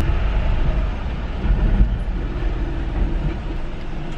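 Car cabin noise as the car rolls forward slowly: a steady low engine and tyre rumble.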